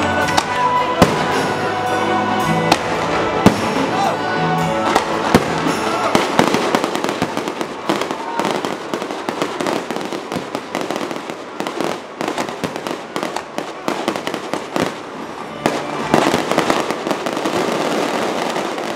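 Aerial fireworks going off: a few loud single bangs in the first few seconds, then dense, continuous crackling, with a flurry of louder bangs near the end. Music plays underneath during the first few seconds.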